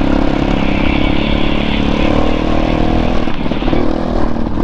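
Motorcycle engine running steadily as the bike rides along a gravel forest track, heard from on board, with a few short knocks and rattles over rough ground about three seconds in.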